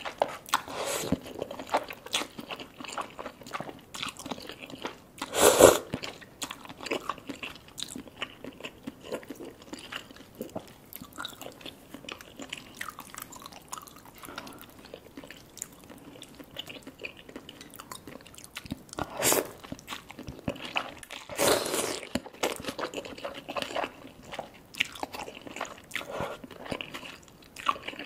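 Close-miked mukbang eating: slurping spicy Korean stew noodles and sipping broth, with wet chewing and small mouth clicks between. Louder slurps come about five, nineteen and twenty-one seconds in.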